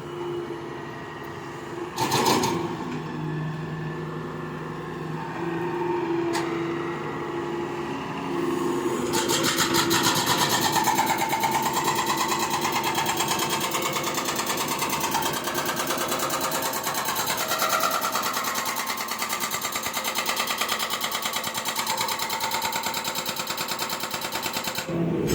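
An excavator's motor running, with a steady hum that turns into a louder, fast mechanical whir about nine seconds in, its pitch shifting slightly as it works.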